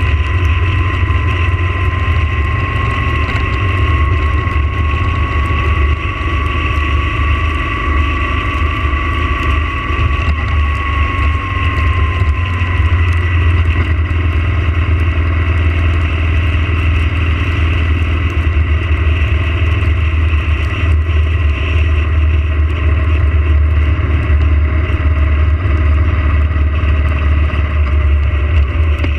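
Yamaha motorcycle cruising at a steady speed on a rain-wet road: a steady, loud low rumble of engine and riding noise, with a thin high whine that rises slightly and fades out about halfway through.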